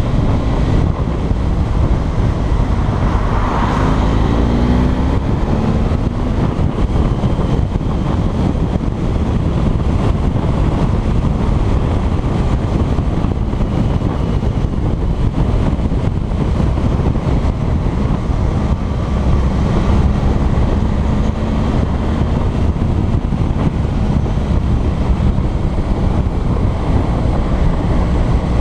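Motorcycle riding along at speed, heavy wind rushing over the camera microphone, with the engine note faintly underneath; the engine rises in pitch briefly about four seconds in.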